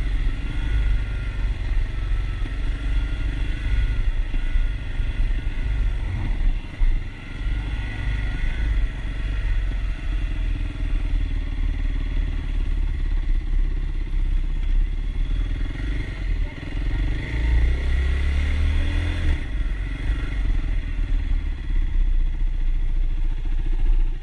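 Kawasaki KLX 300 dirt bike's single-cylinder four-stroke engine running under way, heard from the rider's seat, its pitch rising and falling with the throttle, with one clear rev-up about three-quarters of the way through.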